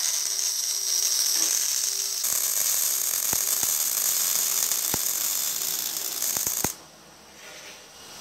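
Wire-feed welding arc crackling and hissing steadily as a bracket is welded onto a steel go-kart frame, with a few sharp pops. The arc cuts off suddenly about two-thirds of the way through.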